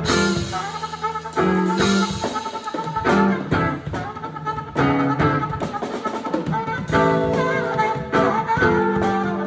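Live funk band playing an instrumental passage: a horn section playing held chords and short stabs over bass and a drum kit, with no singing.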